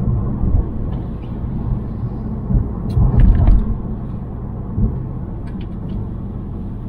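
Ford Focus ST Mk4 with the Mountune M330 upgrade on the move: a steady low engine and road rumble that swells briefly about halfway through, with a few light clicks in the second half.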